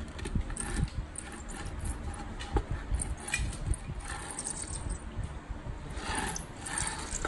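Small die-cast toy car pushed by hand across a wooden board: its wheels roll and scrape on the wood in short runs, with irregular light clicks and knocks.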